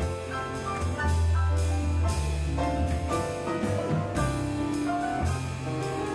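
Live jazz band playing an instrumental passage: a drum kit keeping time with cymbal strokes about twice a second over a deep bass line and melody notes.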